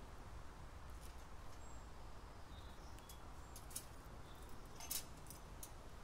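A common grackle pecking seed at a tube bird feeder: a few sharp clicks, the loudest about five seconds in, with a few faint high chirps over a low steady rumble.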